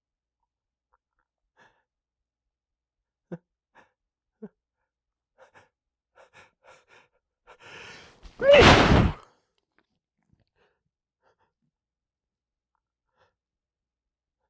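A man sneezing hard into tissues: a string of short, faint hitching catches of breath, a drawn-in breath, then one loud sneeze about eight and a half seconds in.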